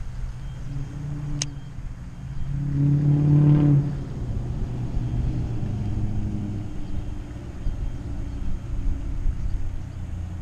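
A motor vehicle's engine passing nearby, rising to its loudest about three and a half seconds in and then fading, over a steady low wind rumble on the microphone. A single sharp click about a second and a half in.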